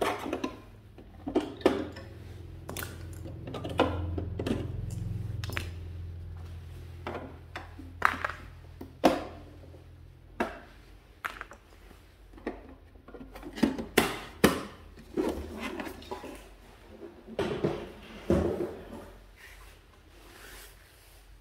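Clocks and other hard objects being handled and set down on a table: scattered knocks and clatter, some sharp and loud. A low hum starts about two seconds in and stops about halfway through.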